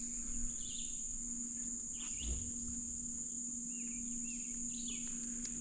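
Insects singing in a steady, unbroken high-pitched drone, the typical late-summer chorus along a creek.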